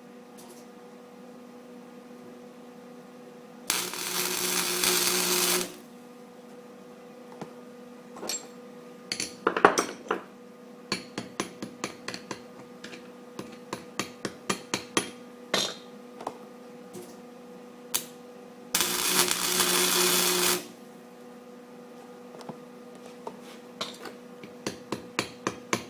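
Arc welding onto a broken bolt stub in a cast iron exhaust manifold: two short welds of about two seconds each, a steady crackle, building the bolt up in quick spot welds. Between them come many light, sharp metallic taps and clicks, and a steady low hum runs underneath.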